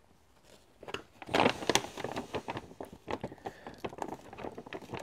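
Plastic-foil flameless heater bag (Adventure Menu) crinkling and rustling in the hands as its top is folded over and closed. The bag is quiet at first, then a run of sharp crinkles comes about a second in, loudest briefly, followed by more irregular crackling.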